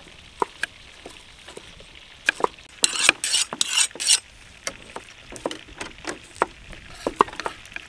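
Cleaver and kitchen knife dicing carrots on a round wooden chopping block: irregular sharp knocks of the blades striking the wood, with a second or so of scratchy noise about three seconds in.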